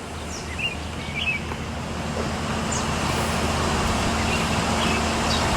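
Heavy demolition machinery's engine running with a steady low hum, growing steadily louder.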